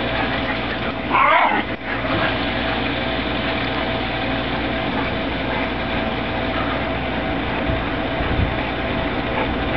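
A dog gives a short high-pitched yelp about a second in, over a steady mechanical hum of constant pitch.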